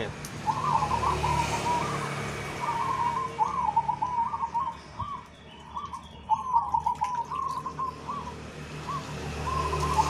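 Zebra doves (perkutut) cooing: a steady run of short, wavering trilled coos, one phrase after another. Underneath is a low rumble of passing road traffic.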